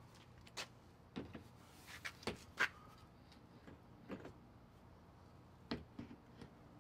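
Irregular light knocks and clicks as a golf cart seat cushion with hinges is set and shifted on the cart's seat base. The loudest knock comes about two and a half seconds in, and a few more follow close together near the end.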